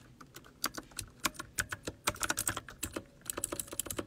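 Typing on a computer keyboard: quick, irregular keystrokes, with a short pause about three seconds in before they resume.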